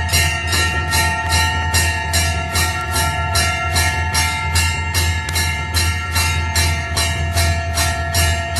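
Temple bell (ghanta) rung rapidly and evenly, about two to three strikes a second, its ringing tones overlapping into a continuous clang, over a steady low hum.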